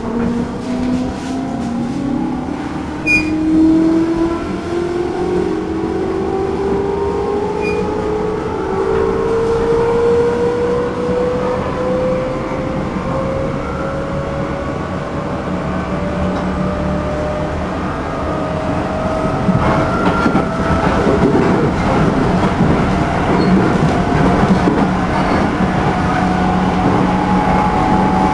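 Motor whine of a JR Central 211 series motor car's MT61 traction motors, heard inside the car. Its pitch rises steadily as the train accelerates, over rolling noise that grows louder about two-thirds of the way in. The whine has a severe undulation: this car is known as an abnormal-noise car, for reasons the recordist cannot explain.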